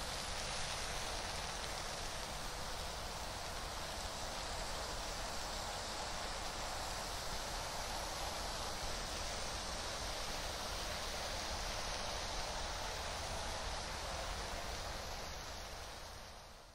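Steady rain falling, an even hiss with no single drops standing out, fading out near the end.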